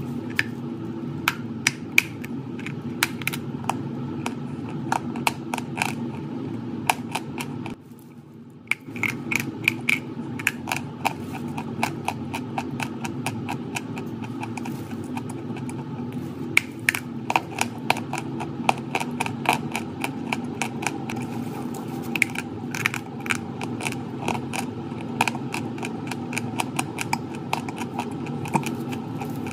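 Chalk being bitten and chewed: irregular crisp crunches, several a second, over a steady low hum, with a brief break about eight seconds in.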